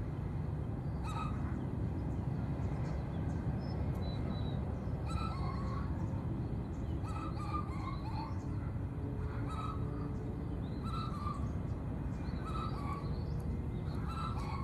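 Birds calling in short chirps, repeated every second or two, over a steady low rumble.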